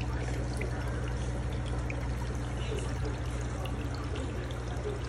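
Aquarium filter return water splashing and trickling steadily into the fish tank, over a low steady hum.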